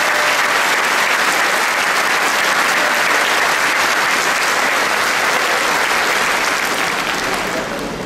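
Applause from a large congregation in a big hall, a dense steady clapping that tapers off near the end.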